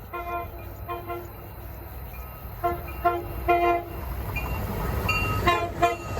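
A train horn sounding a chord of several tones in a rapid series of short toots, about seven, as the train approaches with a low rail rumble that grows louder toward the end.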